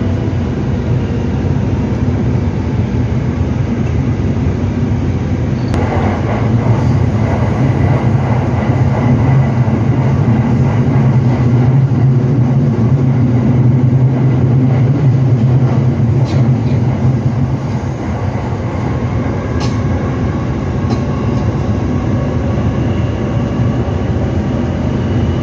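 Electric train running, heard from inside the carriage: a steady rumble of wheels on rail with a low hum that swells about six seconds in and eases off after about eighteen seconds.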